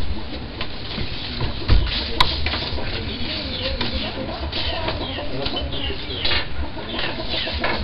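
Many birds chirping: a dense run of short, falling calls overlapping one another, over a low rumble. A sharp click sounds about two seconds in.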